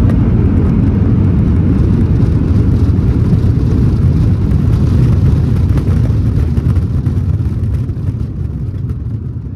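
Airbus A321 cabin noise during the landing rollout: a loud low rumble with rattling, dying away over the last few seconds as the aircraft slows down.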